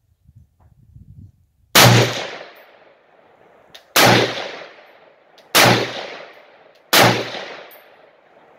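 Springfield M1A semi-automatic rifle in 7.62×51mm firing four shots, about two, one and a half, and just over one second apart. Each shot is a sharp crack that trails off in echo over about a second.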